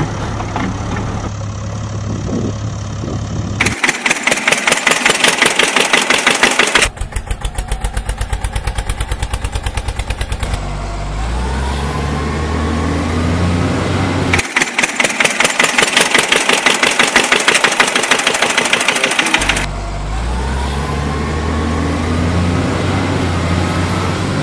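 Vehicle engine sound effect laid over toy footage. An engine idles, then chugs in fast even pulses for a few seconds, then revs up in rising steps as if accelerating through gears. The fast chugging and the rising revs come round a second time.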